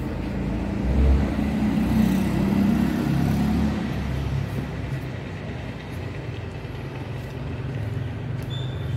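Street traffic: a motor vehicle's engine rumbling low and steady, loudest in the first few seconds, then easing.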